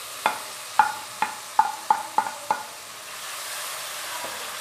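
Chopped tomatoes and onions sizzling in hot oil in a non-stick wok, a steady high hiss. A spatula knocks sharply about seven times in the first two and a half seconds as the tomatoes are scraped in, then stirs.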